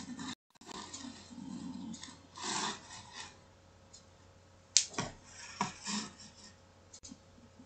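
Irregular rubbing and scraping noises, with a sharp click about five seconds in.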